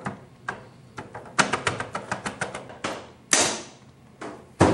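Keys clicking as fingers tap on a small keyboard, with a quick run of clatter in the middle. A louder knock comes a little past three seconds in, and another just before the end.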